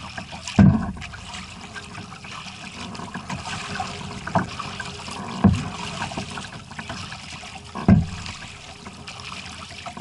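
Water trickling and splashing from kayak paddle strokes, with three dull low thumps: one about half a second in, one about five and a half seconds in, and one near the end.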